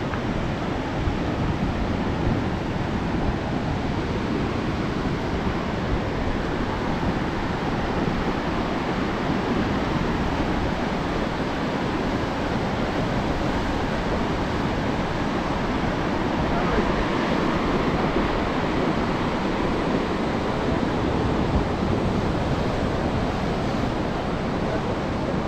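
Steady rush of a muddy river in flood, running high and fast.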